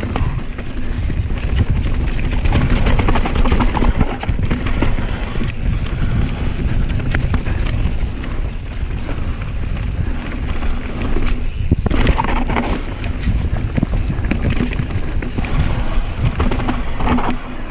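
Mountain bike riding fast down a dirt forest trail: tyres rolling over dirt and roots and the bike rattling and knocking over bumps, with wind rushing over the camera microphone. The noise dips briefly about twelve seconds in.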